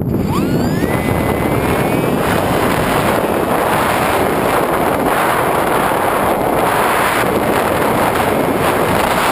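Electric motor and propeller of an EPP-FPV radio-controlled plane heard from on board, throttling up: a whine that rises quickly over the first second, then holds and climbs slowly, under loud wind rush on the microphone.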